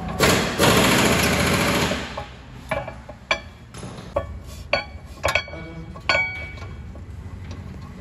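A power wrench runs in one fast rattling burst of about two seconds, as on a brake caliper bolt, followed by a handful of sharp metallic clinks of tools and parts.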